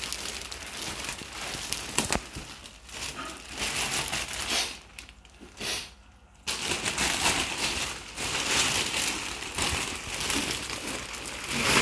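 Plastic bags crinkling and rustling as they are handled and pulled open, with a quieter lull of about two seconds near the middle.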